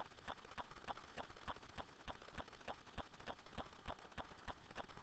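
Steady, rapid clicking, about four clicks a second, evenly spaced and faint.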